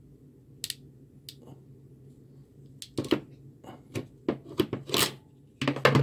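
Hand crimping tool squeezed shut on an insulated ring terminal, crimping it onto a wire. A couple of single clicks come first, then a quick run of sharp clicks and snaps from about three seconds in, with the loudest near the end.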